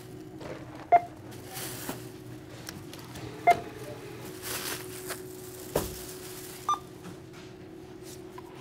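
Supermarket checkout barcode scanner beeping as groceries are scanned: three short beeps a few seconds apart, the last one higher. Plastic grocery bags rustle between the beeps over a steady hum.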